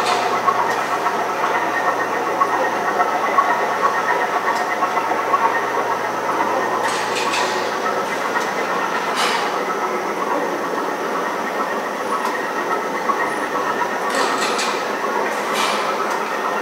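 Steady mechanical running noise with a held squealing whine, and a few light clicks about seven, nine and fifteen seconds in, from the boomtown exhibit's sound effects.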